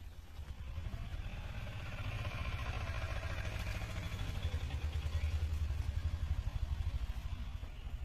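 A motor vehicle's engine rumbling past, growing louder to a peak about five seconds in and easing off near the end.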